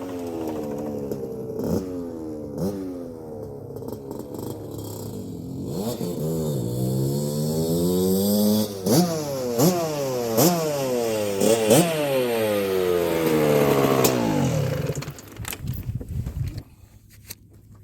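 1981 Suzuki RM125X's two-stroke 125 cc single-cylinder engine, freshly rebuilt and on break-in, revving hard as the bike is ridden through the gears. The pitch repeatedly climbs and then drops at each shift. It fades away after about fifteen seconds.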